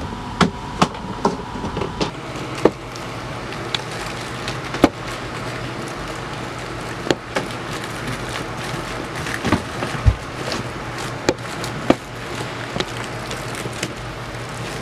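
Irregular clicks and knocks of foil-covered flexible air-conditioning duct being handled and pushed into a vent opening in fiberglass, over a steady low hum.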